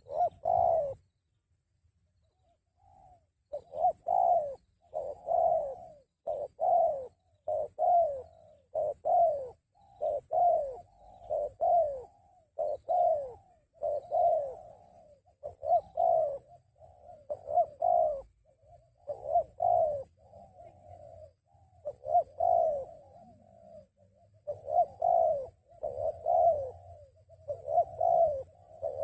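Spotted dove (tekukur) cooing: a long string of repeated coos, about one and a half a second, starting after a short pause about three seconds in.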